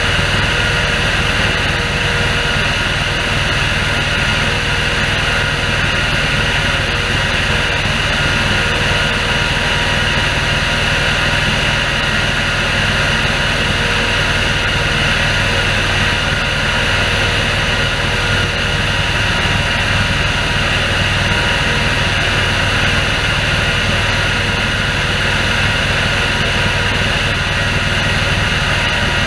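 Orchard air-blast sprayer running while spraying oil: its fan blows in a loud, steady rush over the low drone of the engine driving it, with no change throughout.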